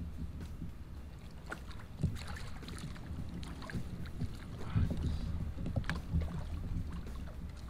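Water splashing and knocks as a landing net is dipped in and lifted out with a fish beside a float tube, over a low rumble of wind on the microphone.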